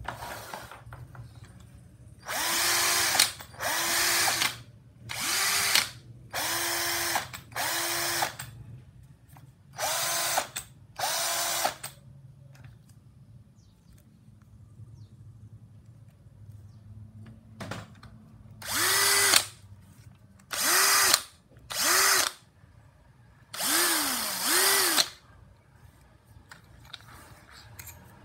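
Cordless combi drills (a Bosch GSB 180-LI 18V and a Makita HP347D 14.4V) free-running with no load in short trigger pulls, each spinning up to speed with a whine and winding down. There are about seven pulls, a pause, then about five more.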